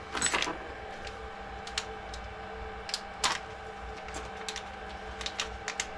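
Scattered light clicks and taps of small hard parts and tools being handled on a workbench, the loudest about three seconds in, over a steady low hum.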